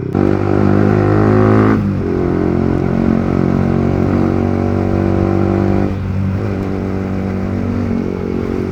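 Yamaha R15 V3's single-cylinder engine running through an aftermarket exhaust while riding: louder under throttle for the first couple of seconds, then easing to a steady cruise, with another short dip about six seconds in.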